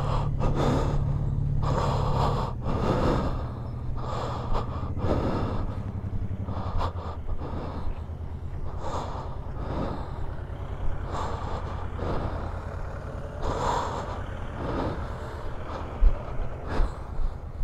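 Yamaha Tracer 9 GT's three-cylinder engine running at low speed, a steady low hum whose pitch shifts a couple of times, with short gusts of noise on the helmet microphone every second or two.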